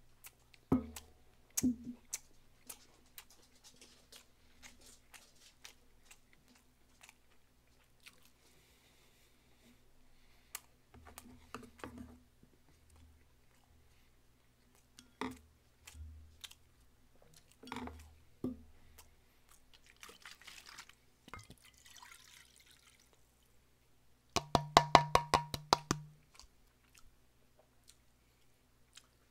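Quiet eating sounds: scattered clicks of chopsticks and bowls and chewing of fried gimmari. Near the end, corn makgeolli glugs from a plastic bottle into a metal bowl in a quick run of gulps lasting under two seconds, the loudest sound.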